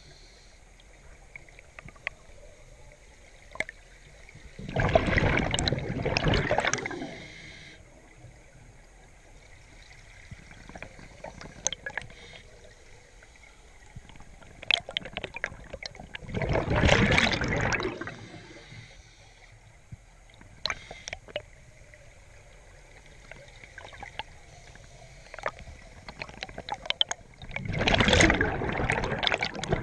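Underwater scuba breathing: three bursts of exhaled bubbles from a regulator, each lasting a second and a half to two seconds, coming about every eleven seconds. Faint scattered clicks fill the gaps between breaths.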